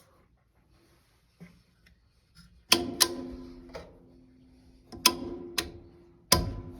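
Six sharp metal clanks a second or so apart, each leaving a ringing metallic tone: metal parts struck or knocked together while taking out the dryer's motor and seized fan assembly.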